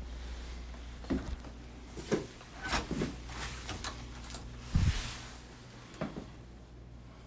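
Household knocks and clunks of drawers and doors being handled: about six sudden knocks over a few seconds, the loudest a heavy thud about five seconds in. A steady low hum underneath dies away around the same time.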